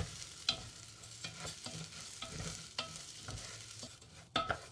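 Rice, minced garlic and shallot stir-fried in oil in a small saucepan: a utensil scrapes and knocks irregularly against the pan over a light sizzle.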